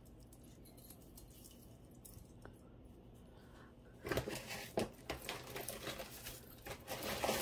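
Quiet for about four seconds, then costume jewelry being handled: a jumble of small clicks, clinks and rustles as chains and pieces are picked through.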